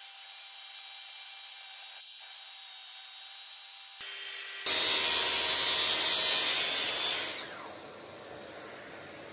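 Festool TSC 55 cordless plunge-cut track saw running and cutting through thick oak at 45 mm depth, loudest for a couple of seconds in the middle of the cut. Near the end the cutting stops and the blade winds down with a falling whine.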